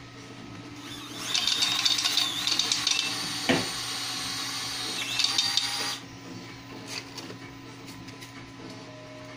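3D-printed electric card shuffler running: its small motor flicks cards from the deck out to both sides in a dense, rapid fluttering that starts about a second in and stops about six seconds in, with a single knock midway. Light clicks of the cards being handled follow.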